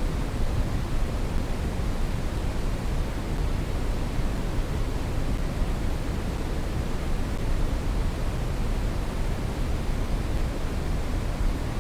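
Steady brown noise: an even, unchanging rushing hiss weighted heavily toward the bass, fading toward the treble.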